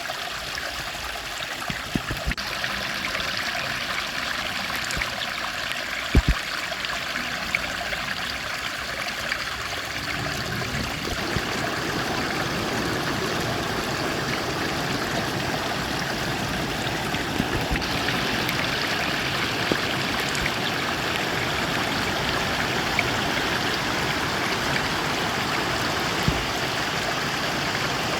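Running water of a stream, a steady rushing that grows louder about ten seconds in. There are a few short knocks, the sharpest about six seconds in.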